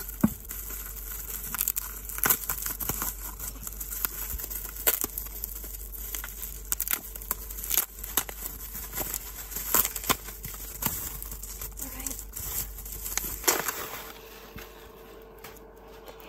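Plastic bubble wrap being cut with scissors and pulled off a glass candle jar, making irregular crinkles and crackles. The rustling dies down near the end.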